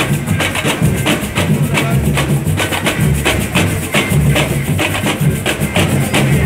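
A samba school drum section (bateria) playing a fast samba rhythm: deep bass drums pulsing under rapid, crisp snare and stick strokes.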